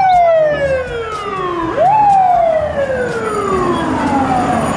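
Fire truck siren winding down in pitch, revved quickly back up about two seconds in, then falling slowly again.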